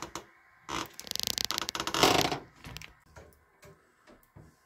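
Brass valve fittings and copper pipe being handled and fitted back together: a quick rasping run of clicks about a second in, a louder scraping noise around two seconds, then a few light clicks.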